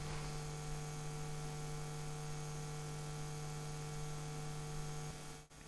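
Steady electrical mains hum with a faint hiss under it, dropping out briefly near the end.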